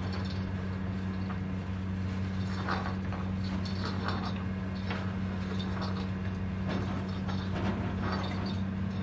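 Old wooden sliding door scraping and rattling in its track in short bouts as a cat's paw pushes it open a little at a time, over a steady low hum.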